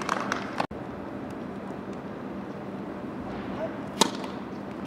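A tennis serve: the racket strikes the ball once with a sharp crack about four seconds in, over faint steady outdoor background.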